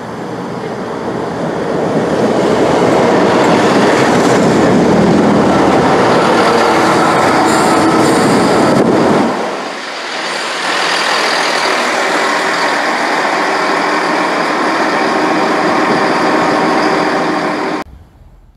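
Diesel multiple units passing a station platform: engine and wheel-on-rail noise that builds over the first couple of seconds and holds loud. After a break about nine and a half seconds in, a second unit runs close past. The sound cuts off suddenly shortly before the end.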